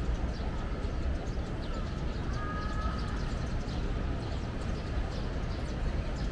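Pedestrian street ambience: a steady low rumble with scattered footsteps and small clicks, and a brief faint tone about two and a half seconds in.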